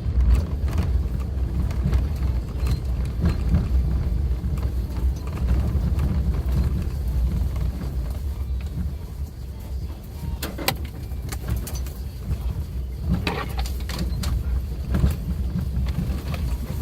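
Suzuki Jimny driving on an unpaved forest road: a steady low rumble of engine and rough road, broken by scattered knocks and rattles, a few stronger ones in the second half.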